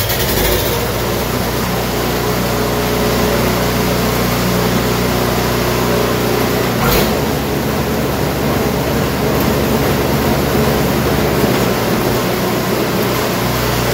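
Two-stage snowblower's small gasoline engine running steadily, just started. About halfway through there is a single clunk and the low running note changes as the auger is engaged; the augers are turning on newly fitted shear pins.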